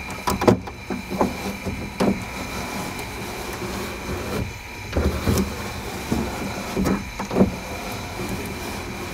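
Manual window regulator of a 1998 Ford Contour's rear door being worked to test newly installed glass. The glass slides in its run channel in irregular scrapes and clunks, loudest about half a second in and again around five and seven seconds in.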